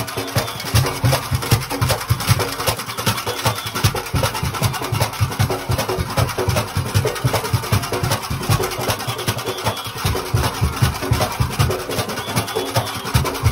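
Junkanoo band playing in the street: fast, unbroken drumming and clanging of handheld bells, many strikes a second with no let-up.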